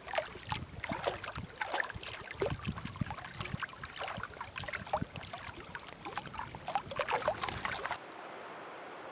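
Small waves lapping and gurgling against shore rocks in shallow water, an irregular run of little splashes and plops. About eight seconds in this cuts to a steady soft hiss.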